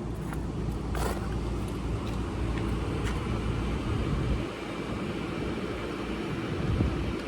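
A crane's engine running steadily, a low rumble, with a few sharp clicks, the clearest about a second in.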